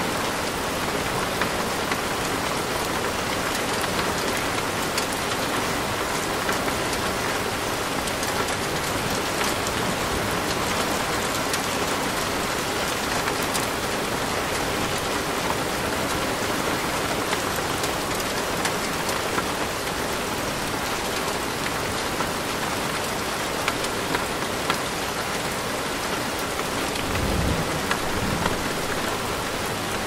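Steady rain falling on leaves: a dense, even patter with many scattered individual drops. A brief low rumble comes near the end.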